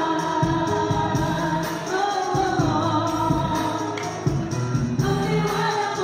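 Live rap performance: a vocalist on a microphone over a hip-hop beat with a repeating bass line, played loud through a PA system.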